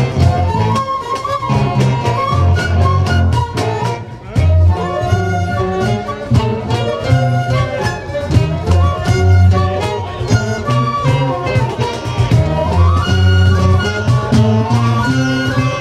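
Live folk band playing an instrumental tune: a section of fiddles on the melody with saxophone, trombone, acoustic and electric guitars, and a djembe beating along. The music dips briefly about four seconds in.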